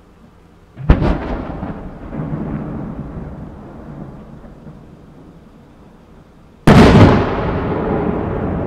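Two aerial firework shells bursting about six seconds apart, each a sudden loud boom followed by a long rumble that dies away over several seconds.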